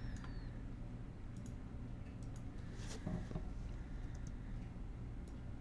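Scattered, sparse clicks of a computer mouse and keyboard over a steady low room hum.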